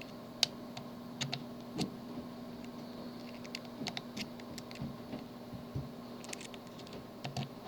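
Small, sharp metal clicks and ticks at irregular intervals as a pick pokes the pins of a tubular lock one by one while a tensioner holds the plug, over a faint steady hum.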